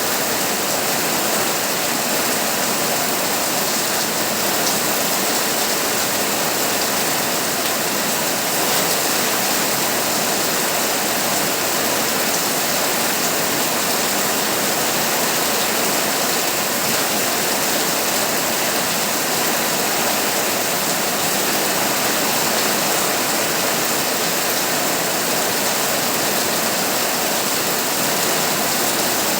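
Heavy rain pouring steadily on a tin roof, an even rushing hiss that holds the same level throughout.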